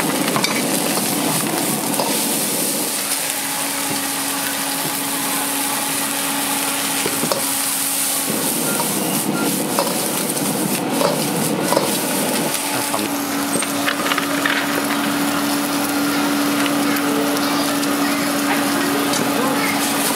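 Bean sprouts, egg and carrot sizzling in a wok over a gas flame, stirred and tossed with a metal ladle that clicks and scrapes against the wok. A steady low hum runs under the sizzle, dropping out for a few seconds in the middle.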